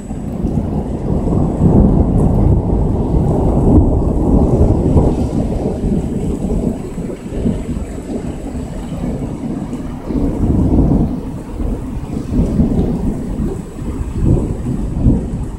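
Long rolling thunder from a thunderstorm. It builds over the first couple of seconds, is loudest for a few seconds after, then rumbles on with several further swells.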